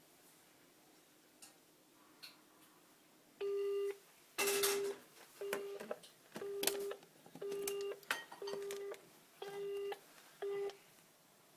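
Telephone keypad beeping as its buttons are pressed: eight single-pitch beeps of uneven length, each with a sharp button click, starting about three and a half seconds in. No dial tone sounds between them, because the phone has none.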